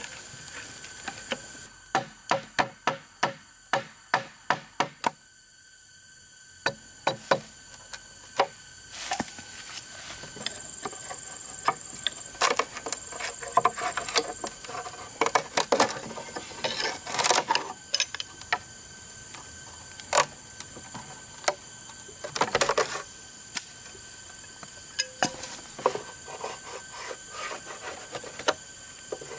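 A wooden mallet knocking a chisel into a green bamboo pole in a quick run of strikes, about three a second, that stops about five seconds in. Then a chisel and knife scrape and chip along the cut in the bamboo, with scattered sharp clicks.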